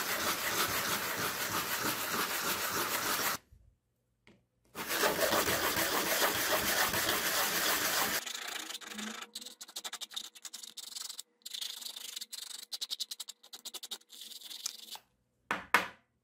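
A short piece of plastic pipe rubbed round and round on a sheet of sandpaper, sanding its cut end: two runs of steady scratchy rubbing with a brief pause between them, then scattered light clicks for the rest.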